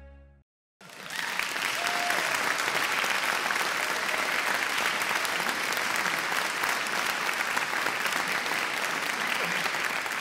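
The final held chord of a song fades out, and after a brief silence a theatre audience applauds, steady and dense clapping that holds to the end.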